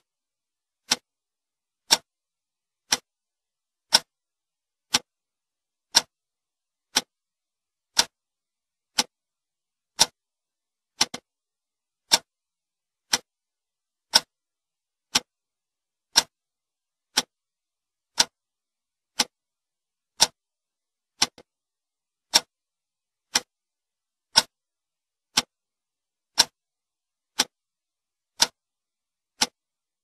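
Antique clock ticking: one short tick about once a second, perfectly regular.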